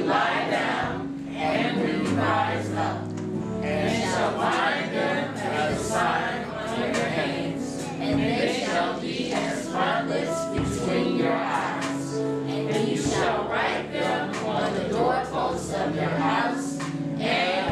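An action song with a group of voices singing over music with a bass line and a steady beat.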